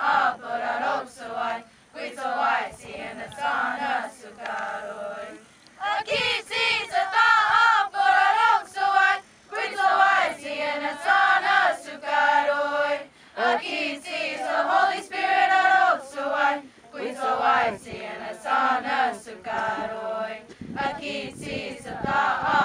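Youth choir, mostly girls' and women's voices, singing a Comanche hymn unaccompanied, in sung phrases with short pauses between them.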